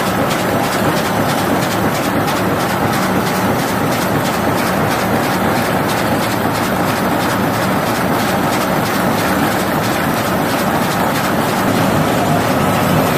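High-speed four-colour printer slotter die cutter for corrugated board running at production speed: a steady, dense machine noise with a fast, even rattle as the board sheets feed through.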